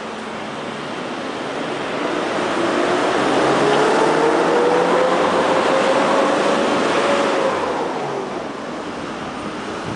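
A road vehicle passing, its noise swelling for about five seconds and then fading, with an engine tone that climbs slowly in pitch and drops away near the end.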